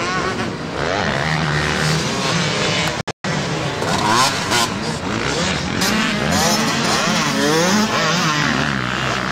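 Dirt bike engines revving up and down, the pitch rising and falling again and again, with more than one engine heard at once. The sound cuts out briefly about three seconds in.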